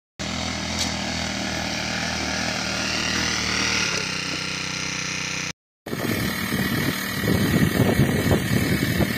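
Small four-stroke petrol engine of a walk-behind rice transplanter running steadily. After a short break it runs on louder and more unevenly, with a choppy rumble underneath.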